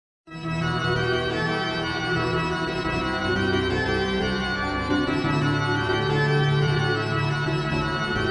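Instrumental music of long held chords, starting abruptly a moment in and playing steadily.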